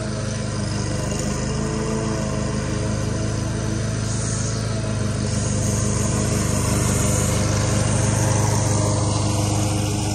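Commercial walk-behind lawn mower engine running steadily under load while mowing, growing louder as the mower comes closer and loudest about eight seconds in.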